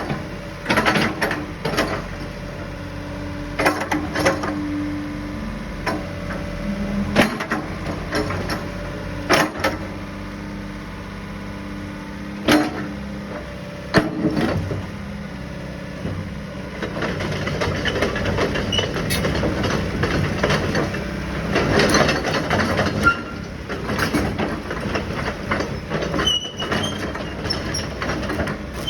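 Sany SY75 excavator running, with a steady engine hum and held whining tones at times. Sharp clanks come every few seconds, and the noise grows busier and louder past the middle.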